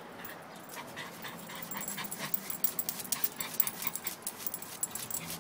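Small dog licking and scratching at a glazed ceramic plant pot: a fast, uneven run of small clicks and scrapes that grows denser about a second in.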